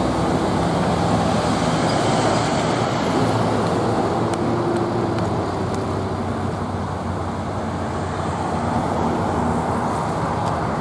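Steady street traffic noise: cars and engines running and passing by.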